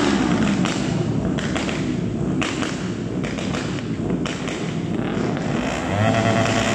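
Yamaha R25 parallel-twin engine with a full-system aftermarket exhaust, warming up: the revs fall back just after the start, it idles with an uneven, choppy exhaust note full of short knocks, then revs rise again about six seconds in.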